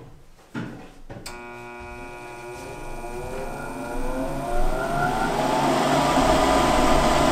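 High-efficiency gas furnace's draft inducer motor starting on a call for heat: a click about a second in, then a whine that rises in pitch as the blower spins up, settling into a steady rush of air with a low hum. This is the first step of the furnace's start-up sequence, before the pressure switches close and the hot surface igniter heats.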